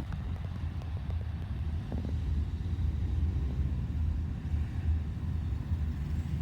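Steady low rumble of motor traffic, with no siren sounding.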